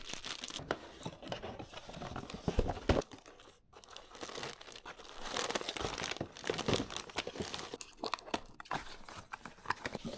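Packaging being unwrapped by hand during an unboxing: crinkling and tearing, with small handling clicks.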